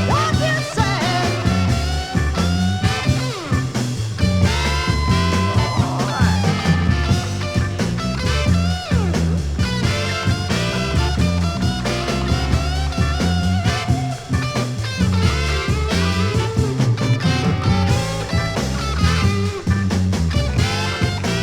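Instrumental break in a 1960s electric blues band recording, played from an original vinyl LP. A steady bass and drum groove runs under a lead line of held and bent notes.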